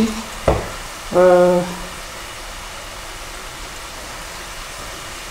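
Balls of mandazi dough deep-frying in a pot of hot oil, giving a steady sizzle. A single knock comes about half a second in.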